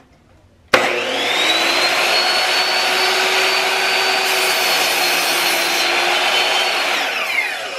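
Ryobi sliding miter saw switched on about a second in: the motor spins up with a sudden high whine and runs steadily while the blade is lowered through a wooden board, with added hiss of the cut midway, then the trigger is released and the blade winds down, its whine falling in pitch near the end.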